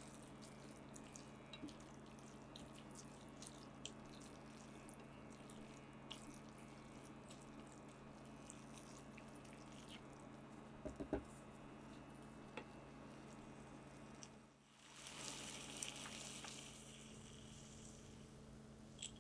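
Faint ticking and popping of a noodle stir-fry in sauce heating in a pan, over a steady hum, with a few louder clicks about 11 s in and a short hiss about 15 s in.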